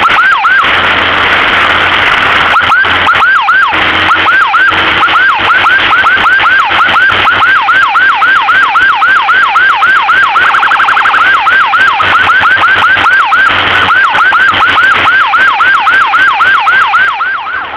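Electronic emergency siren in yelp mode, each cycle a quick sweep down in pitch, about three a second. It briefly switches to a faster rapid warble about ten seconds in, then resumes the yelp and cuts off near the end.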